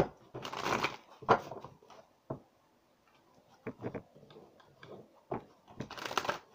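A deck of tarot cards being shuffled and handled: two short bursts of cards sliding against each other, about half a second in and near the end, with scattered light taps and clicks between.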